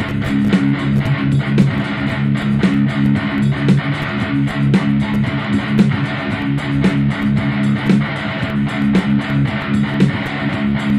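Background guitar music with a steady beat, led by strummed electric guitar over bass.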